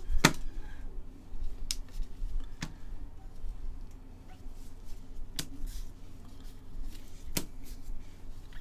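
Trading cards being flipped one by one through a stack in the hand, each card giving a sharp click as it snaps off the pile: about five clicks, a second or two apart, over a low steady hum.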